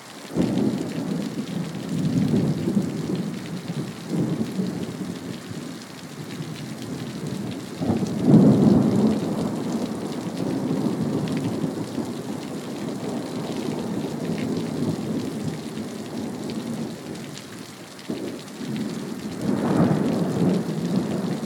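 Thunder rolling over steady rain: a long low rumble begins about half a second in, a louder peal comes about eight seconds in, and another swells near the end.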